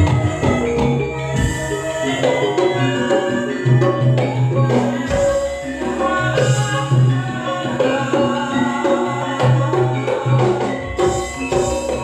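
Campursari ensemble music: many pitched instruments over a strong bass line, with drum and percussion strokes keeping a steady beat.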